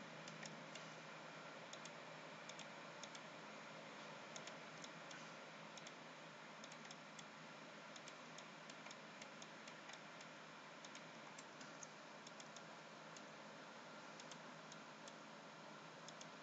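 Faint, irregular clicking of a computer mouse over a steady low hiss from the microphone.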